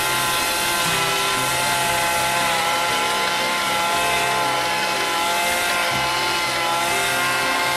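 Small two-stroke engine of a pole pruning tool running steadily at high revs while trimming tree branches, a high buzzing whine with a slight waver in pitch.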